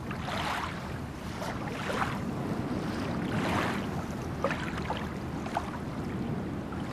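Water washing and slapping against a boat on open sea, swelling about every second and a half, with wind on the microphone and a low steady rumble underneath.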